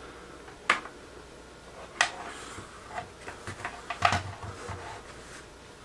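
Scattered short clicks and light knocks, a few at a time, the loudest about four seconds in with a dull thud under it, over a low background hiss.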